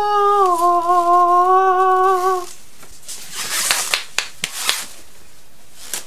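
A voice humming a long held note that steps a little lower and is held again, about two and a half seconds in all. Then plastic wrapping crinkles and rustles, with a few sharp crackles, as it is pulled off.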